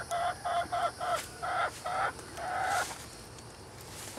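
A hen clucking in a quick run of short notes, about four a second, ending in one longer drawn-out note almost three seconds in: the calling of hens getting ready to lay their eggs.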